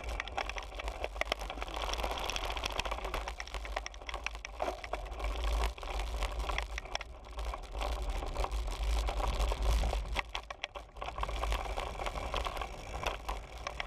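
Riding noise from a road bike filmed by a GoPro mounted on it: wind rumble on the microphone with rapid, irregular clicking and rattling from the bike over the road surface. It eases briefly about two thirds of the way through.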